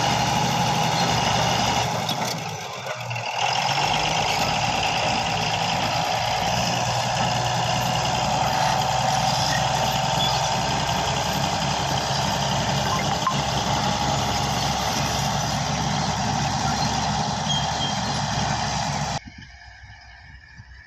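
Komatsu D155A bulldozer's diesel engine running steadily while the machine pushes soil with its blade, dipping briefly about two seconds in. Near the end the engine sound cuts off suddenly, leaving a much quieter background.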